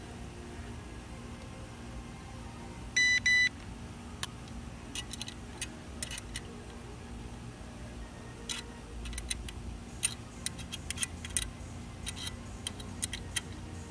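Two short electronic beeps, then a long run of irregular sharp metal clicks from a tool working the well pressure switch's cut-in spring adjustment nut, over a steady low hum.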